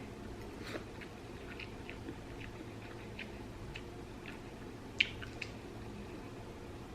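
Someone chewing a mouthful of cheese-flavoured fire noodles: faint, scattered wet mouth clicks and smacks, with one sharper click about five seconds in.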